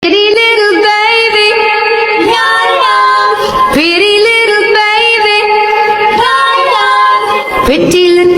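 A high voice singing long held notes that glide up and down between them.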